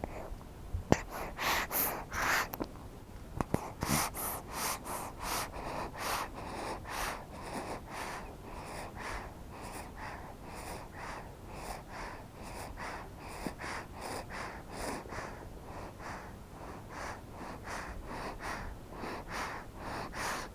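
Baby suckling at the breast: a steady run of soft, breathy sucking sounds, about two a second, a few of them louder in the first few seconds.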